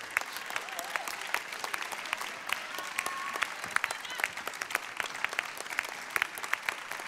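A crowd applauding: steady, dense clapping with sharp individual claps standing out.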